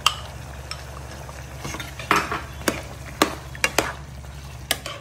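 Steel ladle stirring thick curry in a pot, clinking sharply against the pot about seven times, over a steady low hum.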